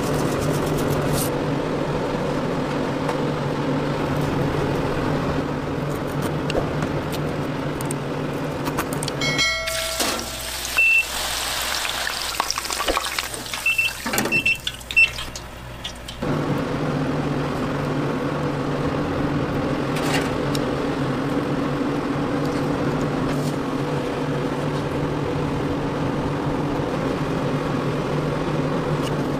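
Steady low mechanical hum of kitchen machinery. For about six seconds in the middle it gives way to deep-fryer work: a wire fry basket clattering out of hot oil, with sharp clicks and a few short high beeps.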